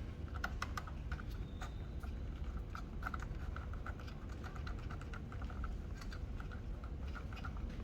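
A rapid, irregular series of light clicks and taps, several a second, over a low steady hum.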